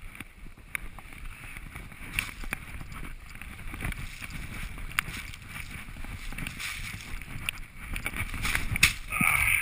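Skis running through deep powder snow: a steady rushing, rumbling noise with wind on the camera's microphone and scattered sharp knocks, getting louder over the last couple of seconds.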